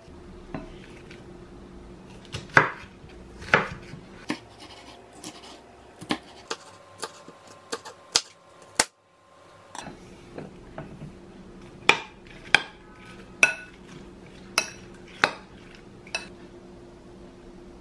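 Chef's knife chopping tomato and bell pepper on a wooden cutting board: irregular sharp knocks of the blade hitting the board. The sound drops out for about a second midway.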